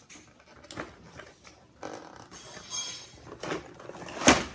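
Plastic toy packaging and toys being handled: short rustles and clicks as toy cars are worked out of their packaging, with one sharp knock near the end.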